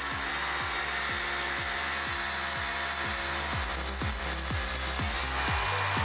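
Engine-driven chainsaw mill with a long bar, its chain ripping lengthwise through a log in a steady, even cut, under background music with a steady beat.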